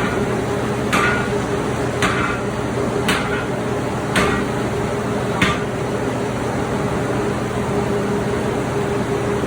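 Hammer blows on a large, hot 1.5-inch round bar at the anvil, six strikes about a second apart, each with a short ring, stopping a little past halfway. A steady hum runs underneath.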